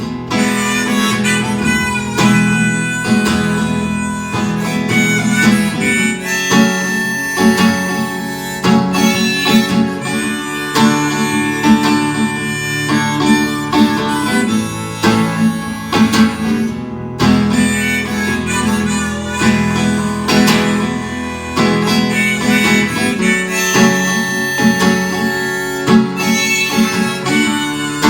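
Harmonica playing a melody over strummed acoustic guitar, an instrumental break between sung verses.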